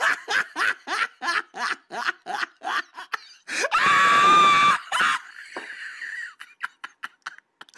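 A person laughing hard in rapid short bursts, breaking about halfway into a long, loud, high-pitched shriek of laughter, then trailing off in weaker scattered laughs.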